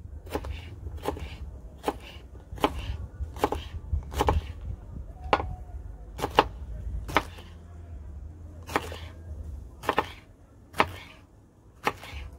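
Chef's knife slicing green chilli peppers on a wooden cutting board: a steady series of sharp knocks as the blade meets the board, about one every three-quarters of a second, with a brief pause about two-thirds of the way through. A low rumble runs underneath.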